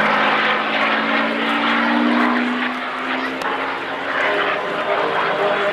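Single-engine propeller aircraft's engine droning during an aerobatic display pass. Its pitch rises a little over the first two seconds, then falls away as the aircraft moves off.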